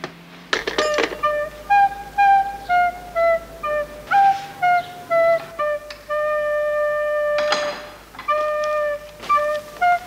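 A single high wind instrument with a flute-like tone plays a melody of short, stepwise falling phrases. About two thirds of the way through, one note is held for about a second and a half, and two short hissing rushes come between phrases.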